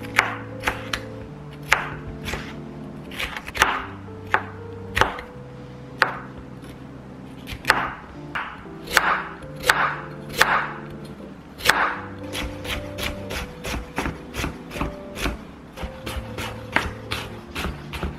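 Kitchen knife chopping food on a cutting board in irregular strokes, turning into a quicker, more even run of chops in the second half, over soft background music.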